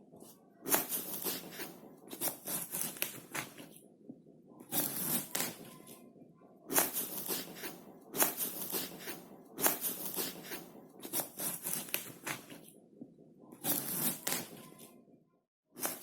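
Knife cutting through fruit: a series of slicing strokes, each starting sharply, with short pauses between them.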